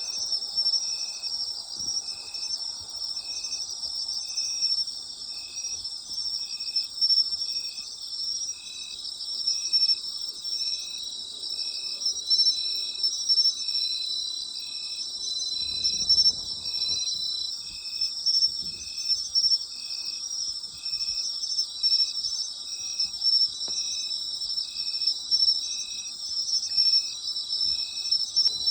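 Night chorus of autumn insects: a dense, steady high trilling, with one insect chirping at an even rhythm about once a second.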